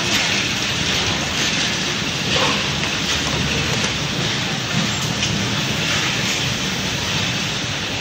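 Steady, even machinery noise on a factory floor, with a few faint clicks as plastic plug shells are handled at the machine.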